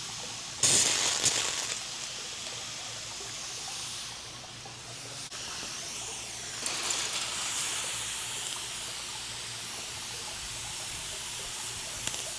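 Water mist spraying with a steady hiss. It gets louder briefly about half a second in, eases off around four seconds, and picks up again about six and a half seconds in.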